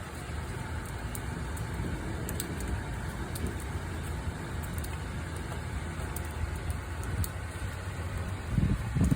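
Steady rain with a low rumble underneath and scattered drop ticks. Near the end, gusts of wind start buffeting the microphone.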